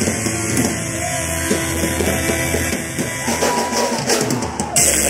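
Live band music through a club PA: a rock/punk-style passage of sustained pitched notes, then a fuller, louder section with a wash of high crashing sound comes in suddenly near the end.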